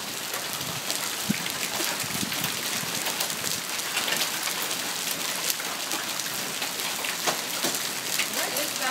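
Steady rain falling, with frequent sharp ticks of drops striking close by.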